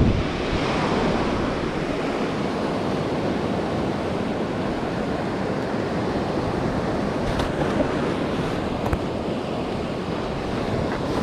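Steady rush of sea surf breaking along a rocky shore, mixed with wind on the microphone. A few faint clicks about two-thirds of the way through.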